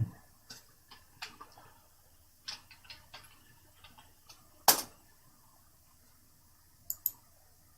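Scattered, irregular clicks of a computer mouse and keyboard, with one louder click near the middle and a quick double click near the end.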